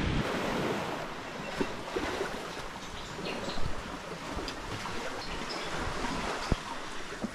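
Small waves washing onto a sandy beach, with wind on the microphone and scattered light clicks and taps.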